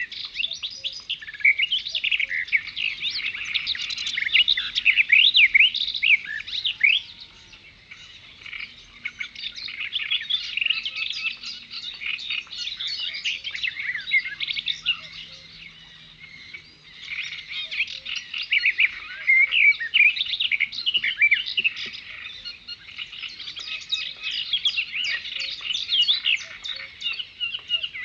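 Many songbirds chirping and twittering at once, a dense chorus of overlapping high calls that eases off briefly about eight and fifteen seconds in.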